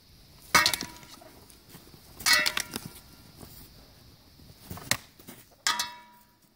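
Practice swords and bucklers striking one another in full-contact sparring: three sharp clacks about half a second, two and a quarter and five and three-quarter seconds in, with a lighter knock just before the five-second mark, some leaving a brief ring.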